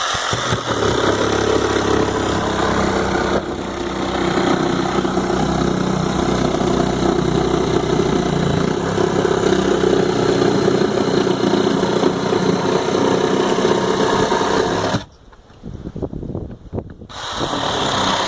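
A motor running steadily with an even hum, which stops abruptly for about two seconds near the end and then starts again.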